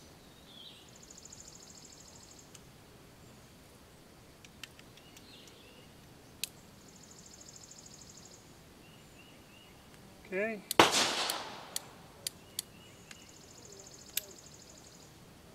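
A single loud gunshot with a short echoing tail, a little past the middle. A few light metallic clicks follow, and insects buzz on and off in the background.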